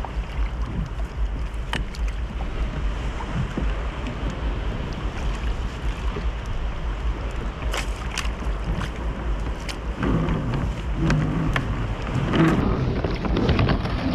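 Water sloshing around a kayak at sea, with wind rumbling on the microphone and a few sharp knocks.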